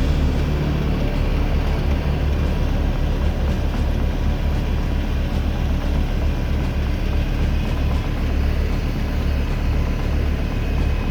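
Tractor engine running steadily with a constant low drone.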